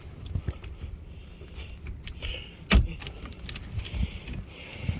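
Blizzard wind buffeting the phone's microphone in a low rumble, with scattered crunches and knocks and one sharp thump a little past the middle.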